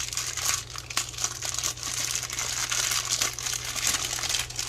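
Plastic packaging crinkling and rustling as toy track parts are handled and unwrapped, with many small clicks throughout.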